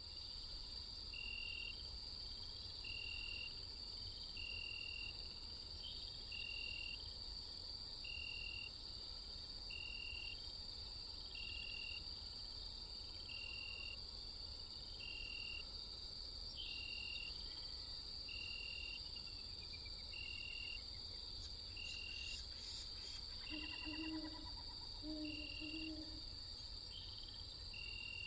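Night insect chorus: a steady high-pitched drone with a short cricket-like chirp repeating about every second and a half. Two low, paired hooting calls come near the end.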